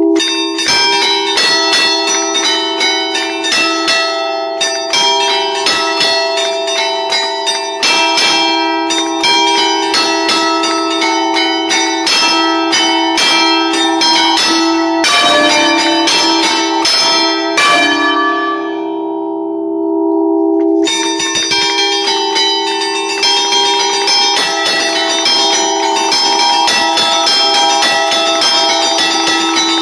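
A concerto of five Barigozzi church bells from 1952, tuned in D, played by hand as allegrezze: fast festive tunes struck from a lever keyboard, with the tones ringing on and overlapping. The strikes stop about two-thirds of the way through, leaving the bells humming for a few seconds, then start again.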